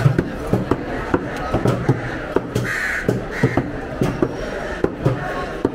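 Steel cleavers chopping tuna on wooden chopping blocks: a quick, uneven run of sharp chops, about three a second. Crows caw a couple of times about halfway through.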